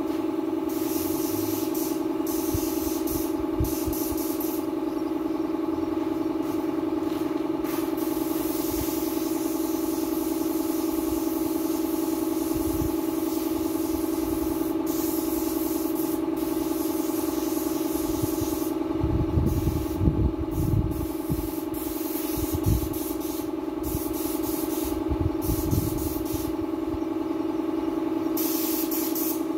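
Hose-fed paint spray gun hissing in short on-off bursts as the trigger is worked, over a steady machine hum. A few low thumps come about two-thirds of the way in.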